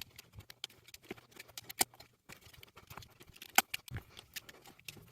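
Scattered faint clicks and snips, irregularly spaced with a few sharper ones, as excess cured Shoe Goo is trimmed from the edge of a re-treaded shoe sole.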